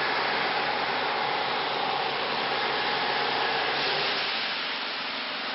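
CNC engraving router working PVC: a steady whirring hiss from the spindle and cutter, with a faint whine. About four seconds in, the whine fades and the hiss turns brighter.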